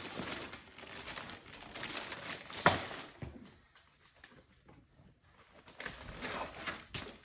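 Wrapped presents and a cloth sack rustling and crinkling as they are handled, with a sharp knock about two and a half seconds in. A quieter pause follows, then more rustling near the end.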